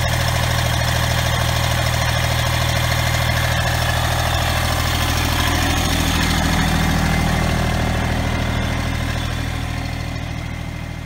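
Massey Ferguson GC1710 sub-compact tractor's three-cylinder diesel engine idling steadily, fading out near the end.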